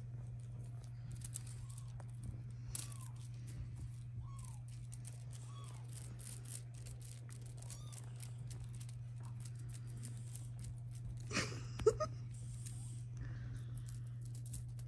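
British Shorthair kittens mewing softly, about half a dozen short calls that rise and fall, over rustling and light pattering of paws on a blanket as they play. A louder rustling scuffle comes about eleven and a half seconds in, and a steady low hum runs underneath.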